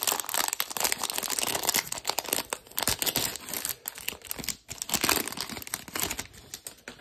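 Foil wrapper of a Panini Select basketball hanger pack being torn open and peeled back by hand: dense crinkling and tearing that stops near the end.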